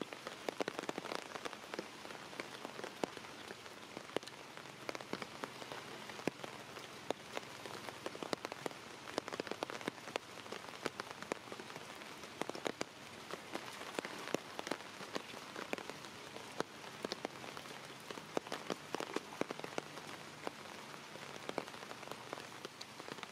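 Steady rain falling on floodwater and wet stone, a dense, even spray of small drop impacts.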